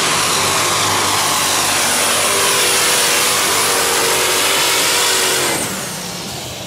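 Super stock pulling tractor's turbocharged engine at full power under load during a pull, with a high turbo whistle over the engine noise. About five and a half seconds in, the engine is throttled back at the end of the run, and the whistle falls in pitch and fades.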